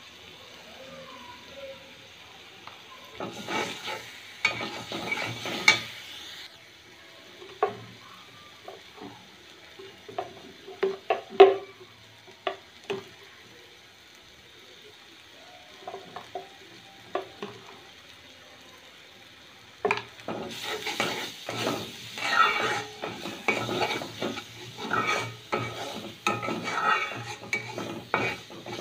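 A flat spatula scraping and stirring onion paste and chili powder around a coated kadai, over the faint sizzle of frying. It goes in spells: a few seconds of stirring, scattered sharp taps in the middle, then steady stirring through the last third.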